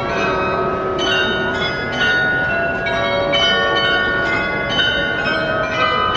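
The Munich Glockenspiel's bells chiming a tune, a few strikes a second, each tone ringing on and overlapping the next.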